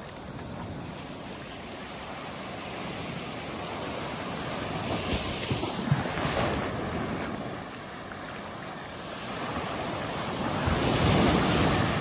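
Small surf breaking on a sandy beach and washing up the shore. Two waves swell and fade: one about halfway through, and a louder one near the end that washes in close.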